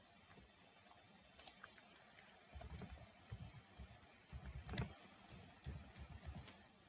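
Faint computer keyboard typing: scattered soft keystrokes, with one sharper click about a second and a half in.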